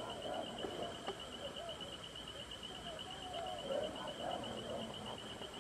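A steady, fast-pulsing high insect trill, with fainter wavering calls lower down beneath it.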